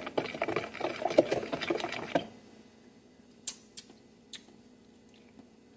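Spoon stirring a wet seasoning mixture in a plastic tub, a rapid run of scrapes and clicks that stops about two seconds in. Then three sharp clicks as a glass jar is handled.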